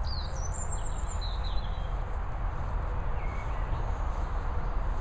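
A bird gives a few quick high chirps in the first second and a half and one short lower chirp about three seconds in, over a steady low rumble and hiss of outdoor noise.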